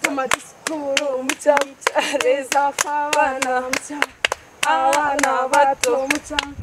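Two women clapping their own and each other's hands in a quick, steady rhythm, with female voices chanting a clapping-game rhyme over the claps.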